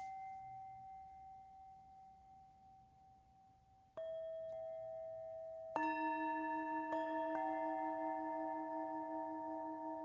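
Tibetan singing bowls struck one after another and left to ring, their notes overlapping. A higher bowl fades from the start, a second bowl is struck about four seconds in, and a larger, lower-pitched bowl, the loudest, about six seconds in, with a slow waver in its tone; another light strike adds a note about a second later.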